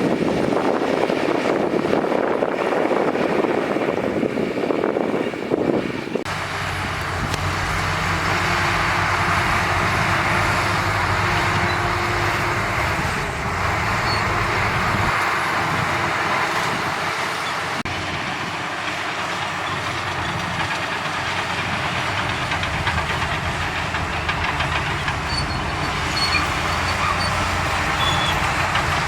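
Heavy diesel earthmoving machinery running steadily under load. About six seconds in the sound changes abruptly to a steadier engine note.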